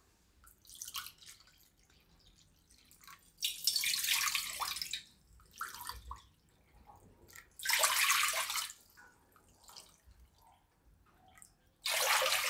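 Water poured cupful by cupful from a measuring cup into a metal pot: three louder splashing pours about four seconds apart, with softer pours between as the cup is filled.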